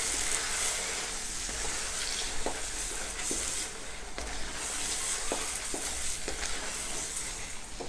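A potato-and-cornflour masala frying in a pan, sizzling steadily while a spoon stirs it, with a few light knocks of the spoon against the pan.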